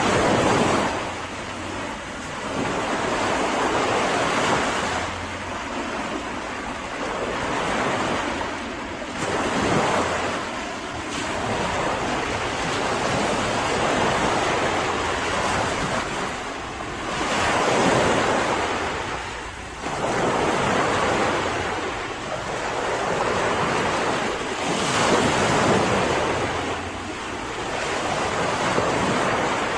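Mediterranean sea waves breaking on a beach and washing back, the surf swelling and falling away every four seconds or so.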